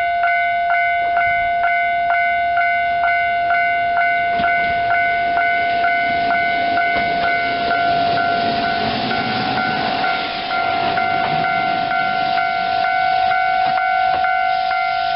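Japanese level-crossing alarm ringing steadily with about two strikes a second, while a diesel railcar rolls over the crossing, its engine and wheel noise swelling in the middle and easing near the end.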